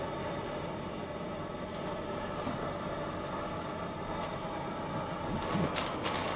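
Steady machinery hum inside a Mir deep-sea submersible's cabin, with a few sharp clicks about five to six seconds in.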